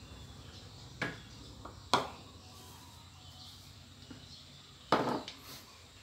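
Three sharp clatters of kitchen dishes or utensils being handled: one about a second in, one about two seconds in, and a heavier one near the end, each ringing briefly. Between them there is only a faint steady background.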